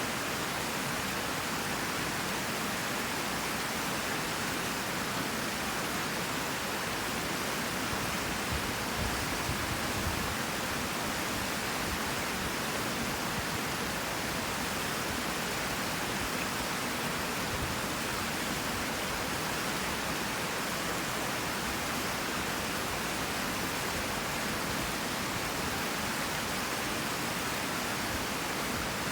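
Creek water rushing over rocks: a steady, even rush.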